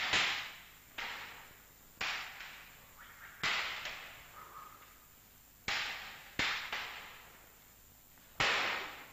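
Long wooden fighting sticks (bâtons) striking against each other in a sparring bout: about seven sharp clacks at irregular intervals, each followed by echo.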